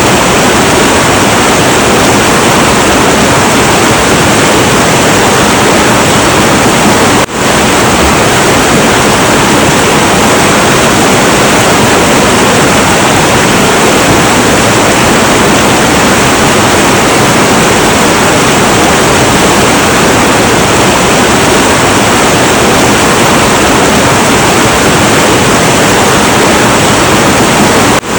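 Heavy, turbulent river water rushing in a loud, steady, even roar, with a momentary dip in level about seven seconds in.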